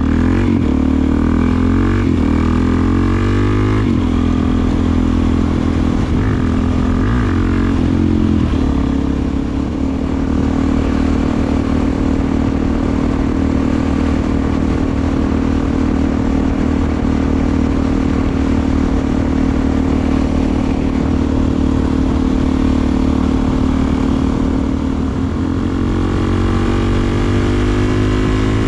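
Suzuki DR-Z400SM's single-cylinder four-stroke engine running through a Delkevic aftermarket exhaust while being ridden. The revs rise and drop through gear changes in the first several seconds, hold steady at cruise through the middle, and climb again near the end.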